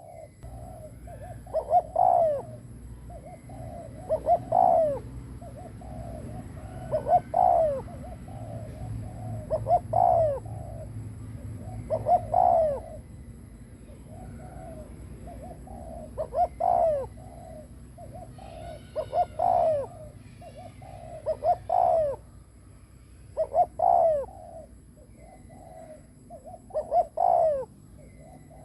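A decoy spotted dove cooing (the bowing 'gù' call used to provoke wild doves), repeating its phrase about every two to three seconds, about a dozen times.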